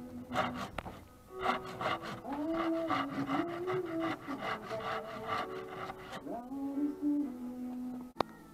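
Hand rasp scraping along a carved wooden walking stick in quick repeated strokes, about three a second, pausing near one second in and tailing off after about six seconds. Background music plays underneath, and there is a sharp click near the end.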